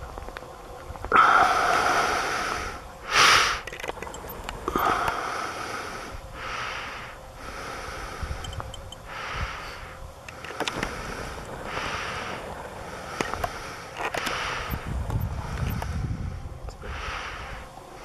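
A person breathing close to the microphone, in regular breaths about every second or so, with two louder, sharper breaths near the start.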